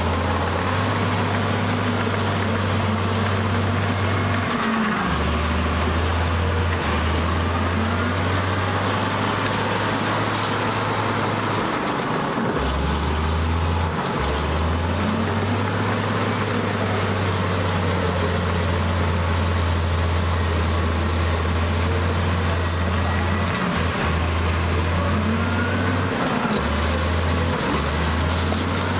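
Heavy diesel engine running steadily, with a brief rise and fall in pitch about every six seconds, like repeated revving under load.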